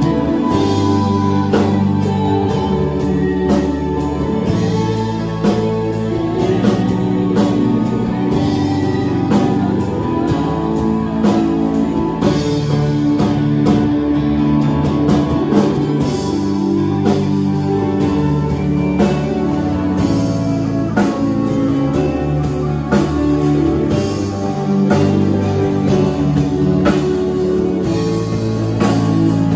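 Live worship band playing a slow song with keyboard, electric guitar and a drum kit keeping a steady beat, with a woman singing the lead into a microphone.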